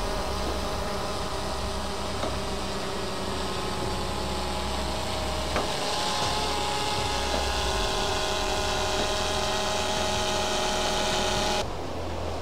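SwellPro FD3 fishing drone's four propellers whining steadily in flight as it carries a bait on its release line. The whine cuts off abruptly near the end.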